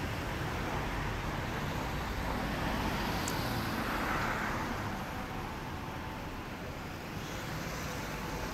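Road traffic noise on a street, swelling about halfway through as a car goes by.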